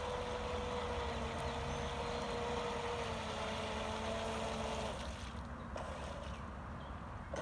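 Radio-controlled boat's motor whining steadily. The pitch dips slightly about three seconds in, and the motor cuts off about five seconds in.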